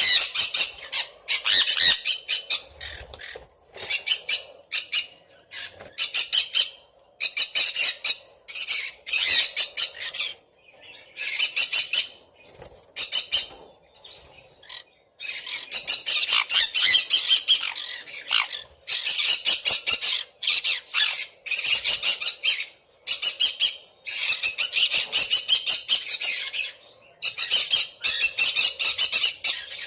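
Sun conures screeching: volleys of rapid, harsh, shrill squawks with short pauses between bursts.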